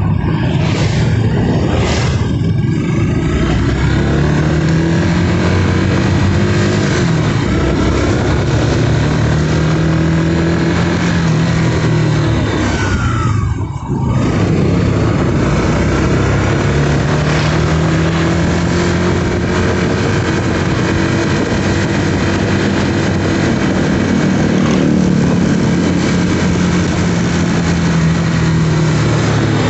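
Motorcycle engine running while riding, its pitch rising and falling several times as the bike speeds up and eases off, over a steady rush of wind and traffic noise.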